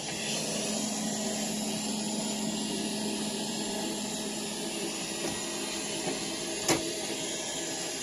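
SUPRA VCS-4093 robot vacuum cleaner running in auto-cleaning mode: a steady motor whir with a low hum. A single sharp knock sounds about two-thirds of the way through, with a couple of faint ticks just before it.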